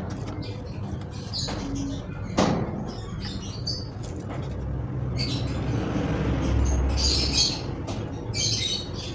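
Plastic clicks, rustles and rattles from handling a ring light and a tripod's plastic phone-holder mount while fitting them together, with one sharp knock about two and a half seconds in. A steady low hum sits underneath.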